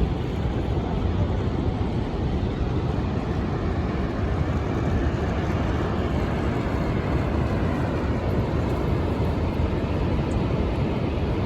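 Steady low roar of Niagara Falls' rushing water, mixed with wind.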